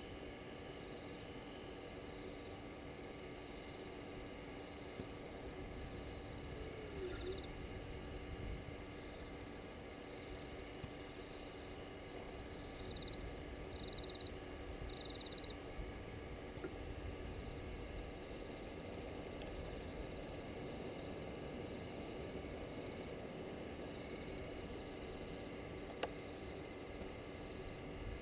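Night insect chorus: crickets trilling steadily at a high pitch, with other insects giving short chirps that repeat every second or two. A single faint click near the end.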